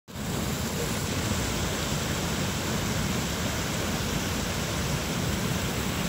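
Venta Rapid, a very wide, low waterfall about two metres high: a steady rush of water pouring over the ledge, with a deep rumble under a hiss.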